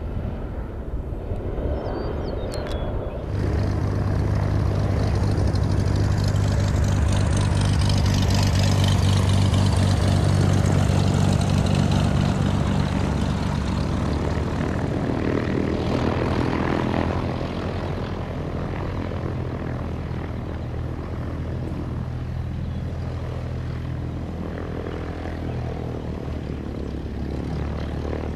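For about three seconds, a turbine-converted Beechcraft Bonanza turboprop climbing away. Then the steady rumble of a Dassault Falcon 7X's three turbofan engines on landing approach, loudest around ten seconds in and easing somewhat after about seventeen seconds.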